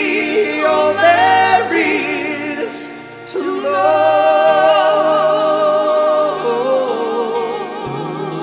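Closing bars of a sung ballad duet: the voices sing over soft accompaniment, dip briefly, then hold one long wavering final note that fades near the end.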